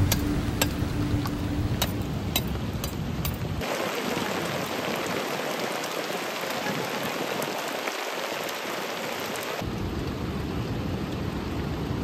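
Monsoon rain falling steadily, with a few sharp drip ticks in the first few seconds. The deep part of the sound drops away suddenly about four seconds in and comes back near the end.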